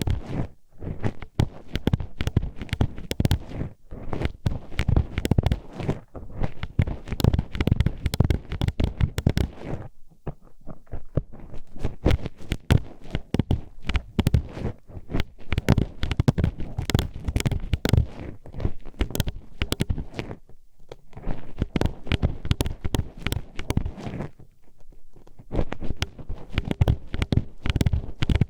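ASMR ear sounds from a hairpin pushed into an ear: dense, irregular clicking, clacking and scraping as the pin is worked around, with short pauses about ten and twenty seconds in.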